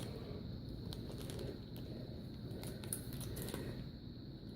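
Faint, scattered clicks and taps of small plastic toy packaging being handled and worked open. A steady faint high whine runs underneath.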